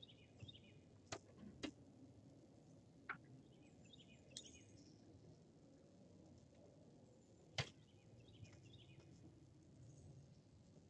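Quiet, with a few sharp clicks and knocks from rods, reels and gear on a fishing boat, the loudest a little past the middle, and faint bird chirps now and then.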